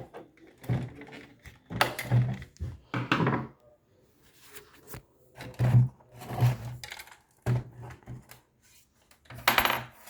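Irregular knocks, scrapes and clatter of objects being handled, in several separate bursts with short pauses between them.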